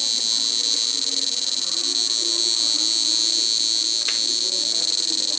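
Electric shock-fishing inverter machine running under load, giving a loud, steady high-pitched electronic whine and buzz. A short faint click comes about four seconds in.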